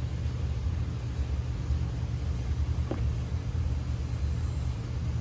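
A steady low rumble, with a faint click about three seconds in.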